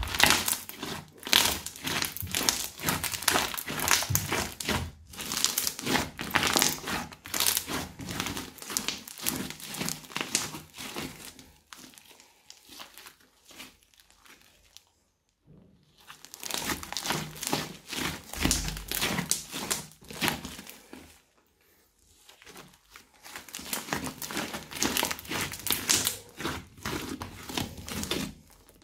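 Crunchy slime with small beads in it, kneaded and squeezed by hand, giving a dense crackling with fine pops. The crackling comes in spells, stopping for a few seconds about twelve seconds in and briefly again past twenty seconds.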